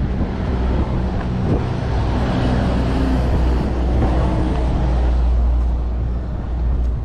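Wind rumbling on the microphone, with a rushing noise that swells about two seconds in and fades again a few seconds later.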